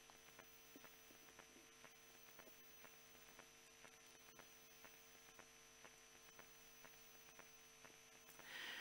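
Near silence: room tone with a faint steady hum and faint soft ticks a few times a second.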